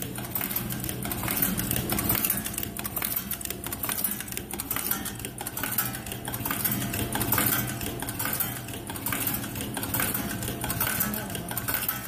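Automatic metal zipper slider mounting machine running, mounting brass sliders with decorative pullers onto metal zipper chain. It makes a fast, continuous metallic clicking and clatter over a steady low motor hum.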